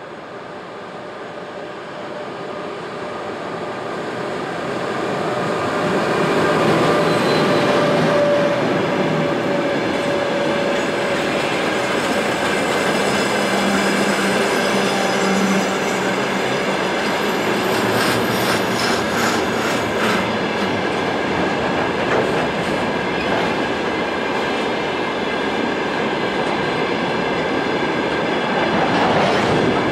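Freight train of open ore wagons passing close by. It gets louder as it approaches over the first several seconds, then settles into a steady rolling noise of wheels on rails, with clickety-clack over the rail joints and a few brief wheel squeals.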